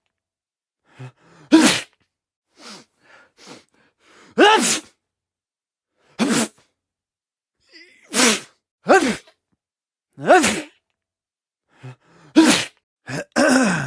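A string of human sneezes and coughs, one short burst after another every second or so with silence between. Most are loud with a falling voiced pitch, and a few fainter ones come in between.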